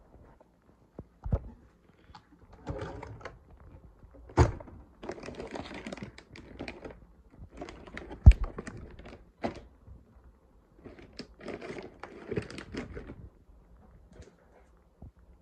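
Wooden kitchen drawers and cabinet doors being pulled open and knocked shut, four or so separate knocks with the loudest about eight seconds in, and rustling as things are shifted about between them.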